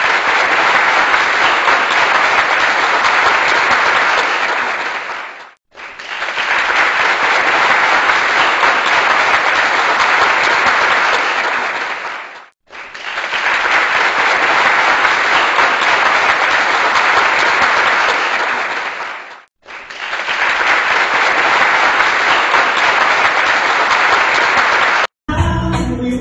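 Crowd applause in four stretches of about six to seven seconds, each swelling in and fading out with a brief gap between. Near the end, music starts.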